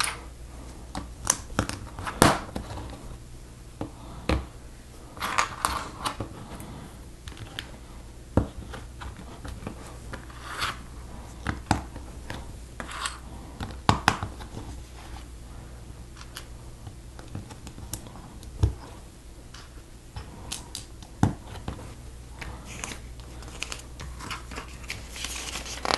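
Small plastic Lego bricks and plates clicking and snapping as they are pressed onto a model, with light handling of loose pieces. The sharp clicks come irregularly, every second or so, over a faint low hum.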